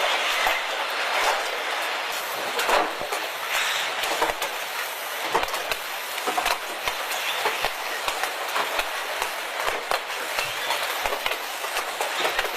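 A machine running with a steady rattling hiss and many irregular clicks and knocks.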